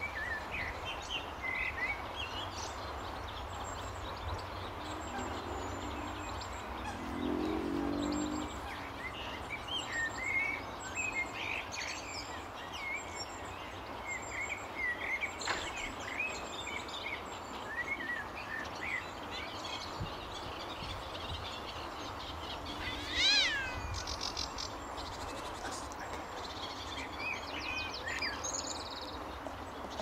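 Wild small birds singing and chirping, many short calls scattered over a steady background hiss, with one louder, sharper call about two-thirds of the way through.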